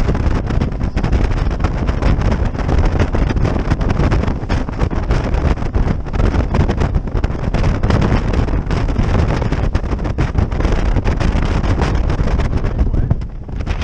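Wind buffeting the microphone of a RIB running fast over the water, mixed with the rush of spray and the boat's running noise. The noise is loud and unbroken, dipping briefly near the end.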